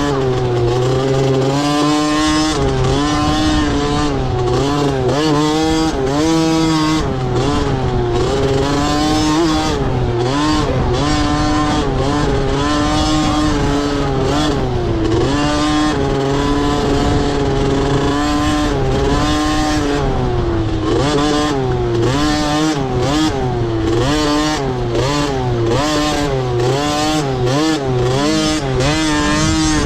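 Motocross dirt bike engines revving up and down over and over as the bikes accelerate and shift around the track, with a steady lower engine hum underneath.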